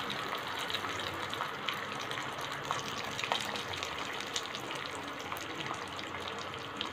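Peanuts, chana dal, urad dal and dried red chillies frying in hot oil for a tempering: a steady sizzle with scattered small pops.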